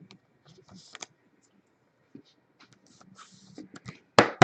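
Trading cards and pack wrappers being handled: light rustling and scattered clicks, with two sharp snaps near the end.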